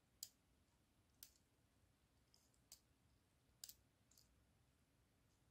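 A few faint clicks, roughly a second apart, from the top rotor of a Think Gizmos Gyro Zoomer mini RC helicopter turned by hand: it moves, sticks and clicks, which the owner puts down to a split in the little pinion gear jamming as it goes round.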